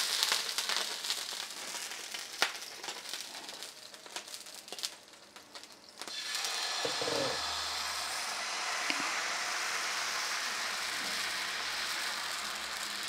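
Water sprinkled on a hot dosa griddle sizzling and crackling, dying away over the first few seconds. After a short lull, millet dosa batter is poured onto the griddle and spread in circles with a ladle, and a soft, steady sizzle runs on.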